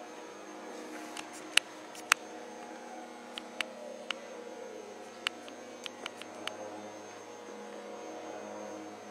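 Steady electrical hum made of several tones, with about a dozen sharp clicks scattered irregularly through it, the two loudest about one and a half and two seconds in. A faint tone slides down in pitch around the middle.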